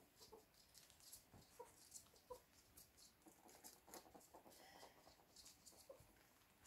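Faint sounds of two ferrets scampering and tussling on a laminate floor: light claw patter and scuffles, with a few soft clucking dooks from the excited ferrets.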